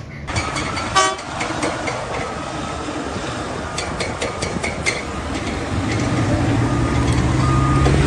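Wheel loader dumping a bucket of rock into a mining haul truck: rocks clattering into the steel bed over the noise of diesel engines. A short horn toot comes about a second in, and a low engine drone grows louder and rises in pitch near the end.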